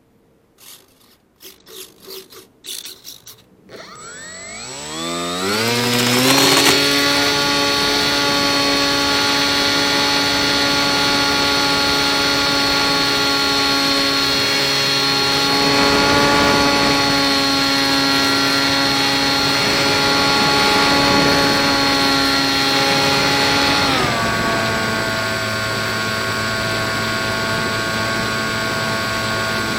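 Electric motor and 7x5 propeller of a small RC plane running on a 2S battery. A few light handling clicks come first. About four seconds in, the motor spools up with a rising whine to a steady high-pitched run for launch. About six seconds before the end it drops to a lower steady pitch.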